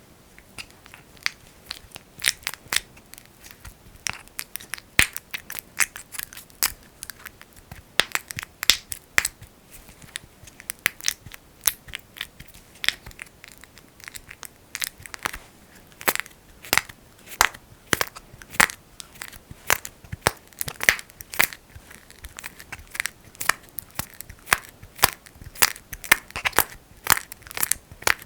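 Fingers working thick Vaseline (petroleum jelly) right against the microphone, making irregular sticky crackles and pops, often several a second.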